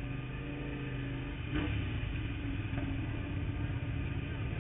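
Sportbike engine running steadily at low revs, with a single sharp click about a second and a half in.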